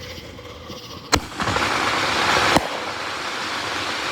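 Firework going off: a sharp bang about a second in, then a loud hissing spray for over a second that ends in a second sharp bang, with hissing trailing off afterwards.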